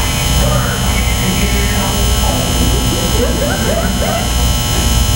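Loud, steady electrical buzz with many overtones, under a low throb that pulses about once a second. Faint voices murmur beneath it.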